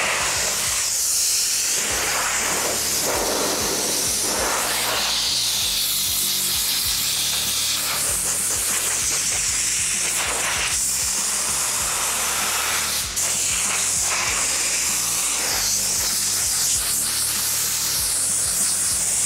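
Compressed-air blow gun on a shop air hose hissing in blasts of varying strength against sheet metal, blowing rinse water off bare steel freshly treated against surface rust. Background music plays underneath.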